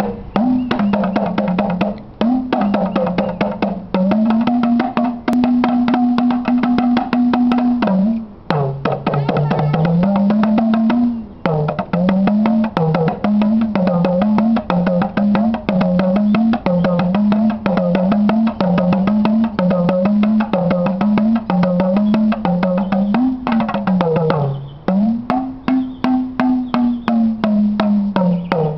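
Tama, the Senegalese talking drum, played in rapid strokes, its pitch bending up and down as the cords are squeezed under the arm. The pitch is held high for a few seconds, drops low, then rises and falls in a steady repeating pattern of about one swoop a second.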